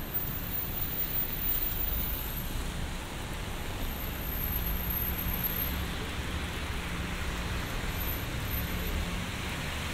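Traffic on a rain-wet city street: a low hum of car engines under a steady hiss of rain and wet road.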